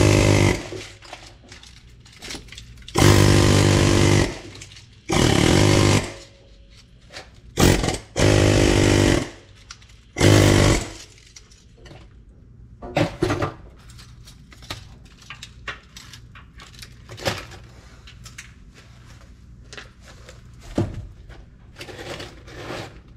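Pneumatic air chisel with a half-moon bit hammering in six short bursts over the first eleven seconds as it cuts around the copper winding inside an AC compressor's steel motor housing. After that come scattered light knocks and clinks of metal as the cut winding is handled.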